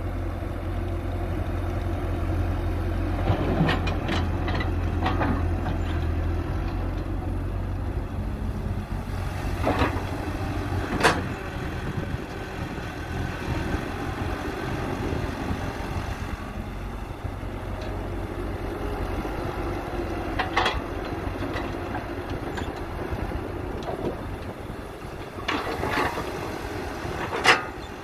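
Caterpillar hydraulic excavator's diesel engine running steadily under digging work, with several sharp clanks as the bucket works the soil, the loudest about a third of the way in and just before the end.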